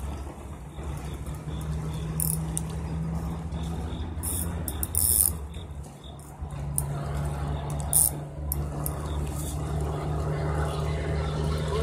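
A steady low engine hum, with scattered clicks and rattles from a spinning reel and rod as a hooked catfish is played.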